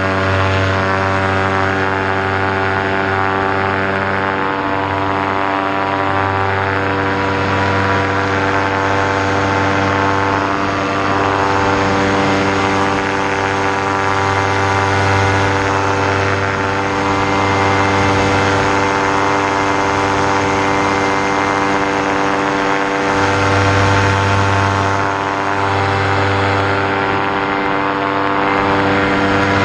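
Vittorazi Moster 185 two-stroke paramotor engine and propeller running steadily at high power, pitch nearly constant, through the trike's takeoff run and climb-out.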